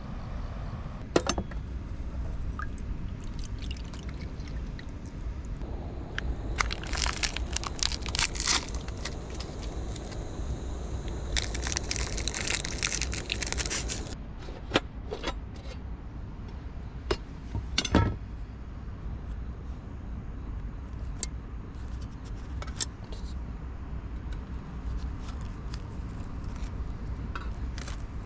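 Camp cooking sounds: a foil packet rustles and its contents are poured into a stainless-steel cup, in two bouts of crackling, with a few sharp metal clinks and knocks of cookware, the loudest about a second in and near the middle, over a steady low rumble.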